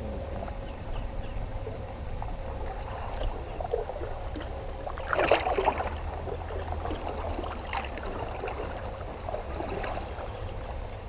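A kayak moving through water, with paddle splashes and one louder splash about five seconds in, over a steady low rumble of wind on the microphone.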